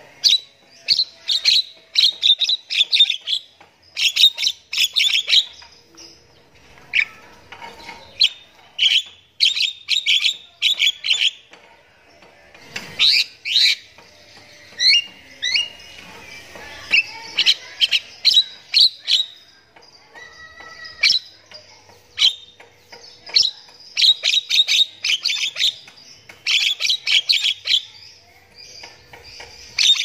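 Javan myna in full song, chattering loudly: quick runs of sharp, high chirps and whistles, broken by short pauses.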